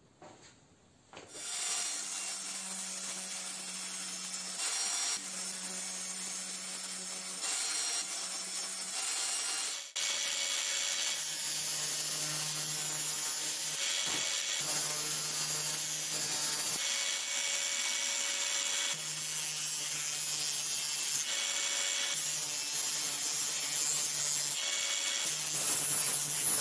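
An angle grinder mounted in a bench stand starts about a second and a half in and keeps running with a steady hum. A wooden block is pressed against its spinning abrasive disc, so the sanding noise swells and eases in stretches of a few seconds. The sound breaks off briefly about ten seconds in.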